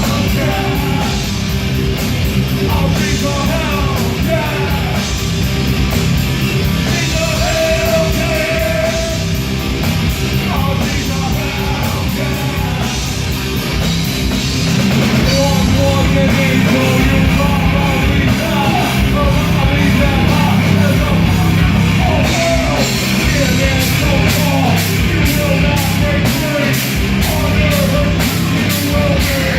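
Live rock band playing loudly, with a singer's voice over drums and guitars.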